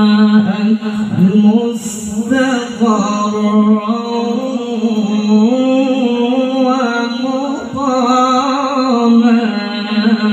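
A man reciting the Quran in the melodic, competition-style manner of a qori, amplified through a handheld microphone: long held notes with wavering, melismatic ornaments, broken by short breaths.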